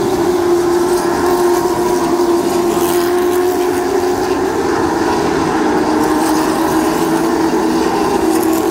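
A field of race cars' engines running at speed around a short oval, a loud, steady drone whose pitch holds nearly level, dipping slightly near the end.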